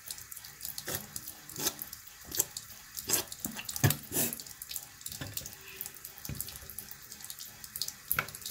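Bathroom faucet running steadily into a sink while a toothbrush is rinsed under the stream, with irregular splashes and small clicks and knocks throughout.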